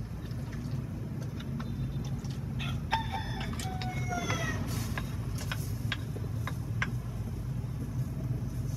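A rooster crows once about three seconds in, a single call of about a second and a half with a falling pitch. Under it runs a steady low rumble, with scattered light clicks and scrapes of a metal spoon on a clay mortar and a wok.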